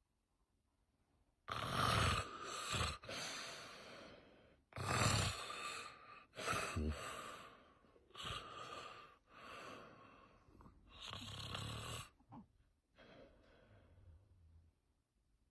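A man snoring loudly, a series of rasping snores each a second or two long, easing to softer breaths near the end.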